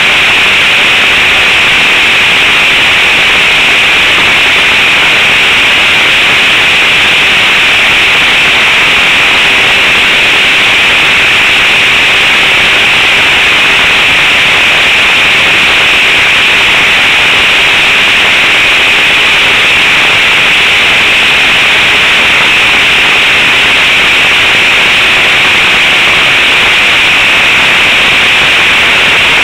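Model aeroplane engine and propeller running steadily in flight, picked up by a camera on the plane: a loud, even drone with a hiss that doesn't change.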